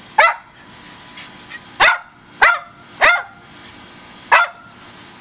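Rat terrier barking at a squirrel: five sharp, separate barks spaced unevenly over a few seconds, the alert barking of a dog that has treed prey.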